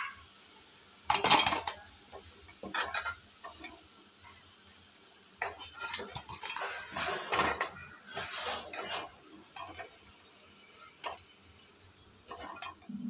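Perforated steel skimmer scraping and clinking against a metal kadai at irregular moments, the loudest knock about a second in, as fried cauliflower pieces are scooped out of hot frying oil, which sizzles faintly underneath.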